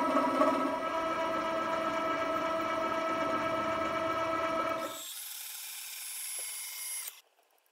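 Vertical milling machine running, its end mill cutting a slot in a thick steel pipe: a steady hum made of several fixed tones. About five seconds in the machine sound cuts off abruptly, leaving only a faint high whine, then silence near the end.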